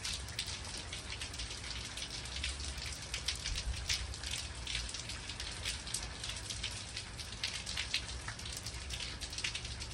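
Heavy rain falling, with a steady hiss and many irregular drops striking hard surfaces close by.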